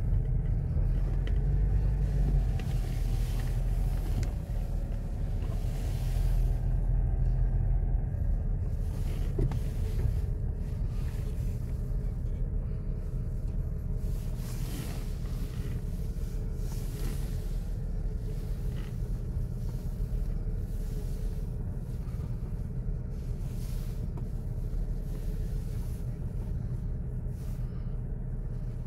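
Low, steady rumble of a car's engine and tyres on the road, heard from inside the cabin while driving slowly.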